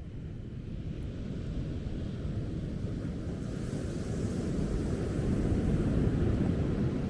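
Ocean surf and wind buffeting the microphone: a low, rushing rumble that swells for several seconds, with a brighter hiss joining about halfway, then eases slightly near the end.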